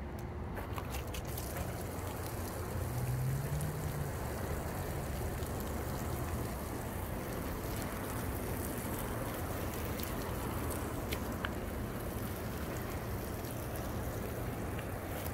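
Water sprinkling from a watering can's rose onto leafy plants and mulch, a steady splashing, with a low steady hum underneath.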